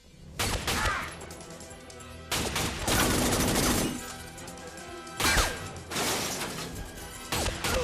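Several bursts of rapid gunfire with things shattering and crashing, the longest run about two to four seconds in, over a film score.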